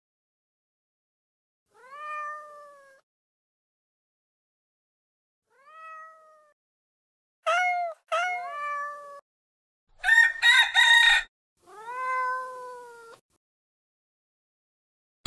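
A domestic cat meowing, about half a dozen separate meows that each rise and then fall in pitch, with a quick run of harsher cries about ten seconds in.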